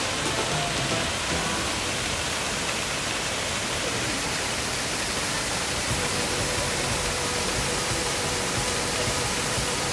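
Waterfall: a steady, dense rush of falling water, close and loud.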